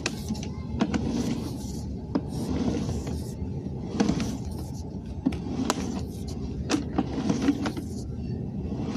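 Push-rod sewer inspection camera cable being pulled back through a PVC drain line: a steady low rumble with irregular sharp clicks and scrapes.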